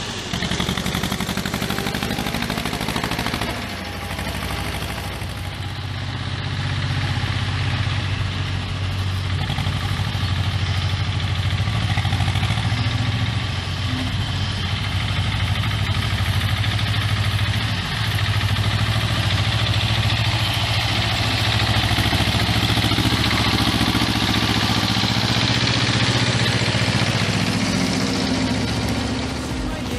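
Ursus C-330M tractor's two-cylinder diesel engine running steadily as it hauls a loaded firewood trailer along a muddy forest track.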